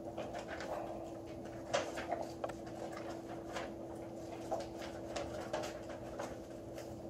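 Classroom room tone: a steady low hum with scattered small clicks and rustles of paper and movement.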